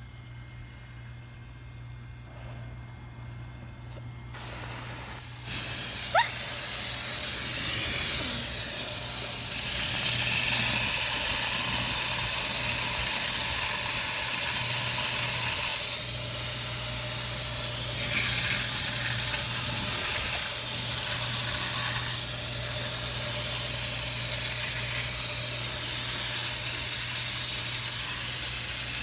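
Garden hose spraying water with a steady hiss that comes on about five seconds in, splashing into a plastic bucket. There is a short squeak just after the water starts.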